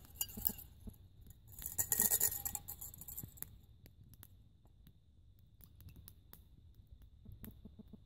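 Water swilled in a camp mug and splashed out onto the ground, about two seconds in, with small clinks of the mug. Light crackle of a wood fire in a small folding stove.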